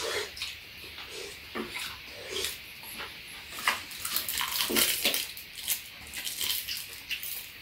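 Eating sounds: slurping and smacking of mouthfuls of stew and rice, with light spoon clicks, in short irregular bursts.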